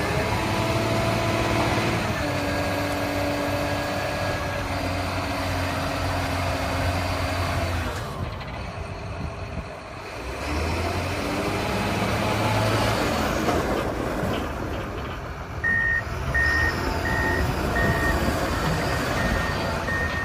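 John Deere 644 P-Tier wheel loader's diesel engine running, its pitch shifting a couple of seconds in and easing off briefly about halfway through before picking up again. About three-quarters of the way in, the reversing alarm starts beeping steadily, about one and a half beeps a second, as the loader backs up.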